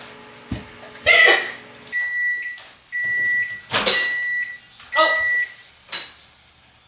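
Microwave oven beeping four times, long even beeps about a second apart, the usual signal that its cooking cycle has finished. Short knocks and clatters fall around them, the sharpest just before the third beep.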